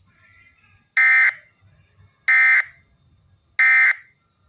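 Emergency Alert System end-of-message signal: three identical short, shrill digital data bursts about a second apart, the SAME tones that close a weather radio test.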